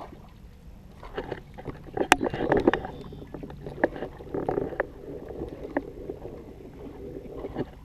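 Water slapping and lapping against a small fiberglass boat's hull, with irregular knocks and thumps on the boat, loudest about two seconds in, over a steady low rumble.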